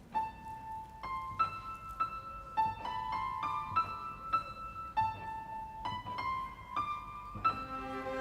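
Piano playing a slow melody one note at a time, each note struck and left to ring; lower notes join in near the end as the accompaniment fills out.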